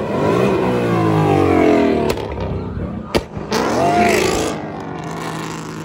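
Car engine revved hard, the revs falling away, with two sharp exhaust pops about two and three seconds in. It revs briefly once more, then settles to a steady idle.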